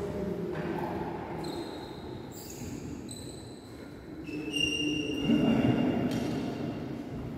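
Badminton players' court shoes squeaking on the court floor during a rally: a run of short, high-pitched squeals, several overlapping, in a large echoing hall.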